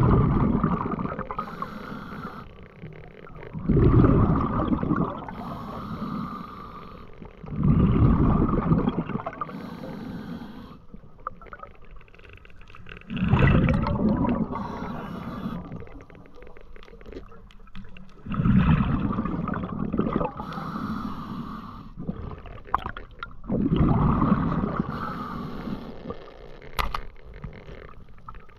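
Diver breathing underwater through a regulator: a gurgling rush of exhaled bubbles about every four to five seconds, six times in all, with a faint high hiss of inhalation between them.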